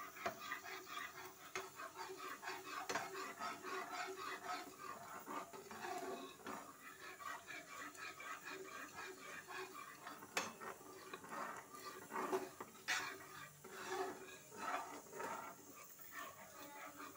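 Spatula stirring and scraping through thick yogurt-tomato gravy in a nonstick pan, a steady run of quick scrapes with a few sharper ones. The gravy is kept moving continuously just after the yogurt has gone in.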